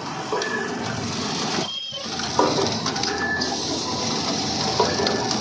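Elastic-joining machine running, its mechanism going through short repeated cycles that start and stop about every second, with a steady high hiss coming in about halfway.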